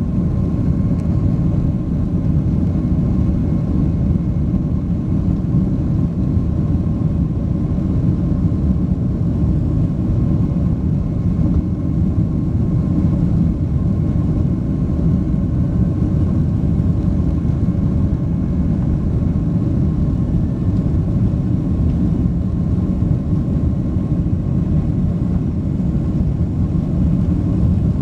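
Boeing 767-300 airliner's engines at takeoff thrust, heard from inside the cabin: a loud, steady rumble with faint steady whining tones over it, unchanging throughout.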